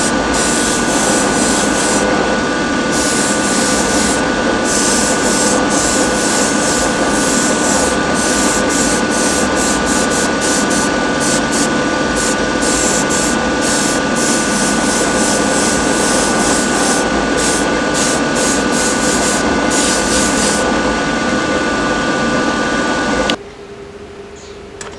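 Paint being sprayed onto a masked model car chassis: a steady motor hum with two steady tones, over which a hiss of spray starts and stops in short bursts. The hiss stops a few seconds before the end, and the hum then cuts off suddenly.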